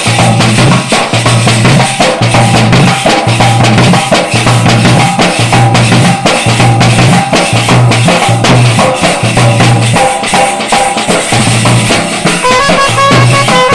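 Street brass band (band set) drumming: a loud, fast, steady beat of drums and cymbals, and near the end the horns start a melody over it.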